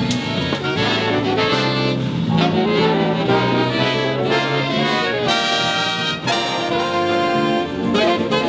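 Big band playing a jazz arrangement, with the brass and saxophone sections sounding together in full, steady ensemble.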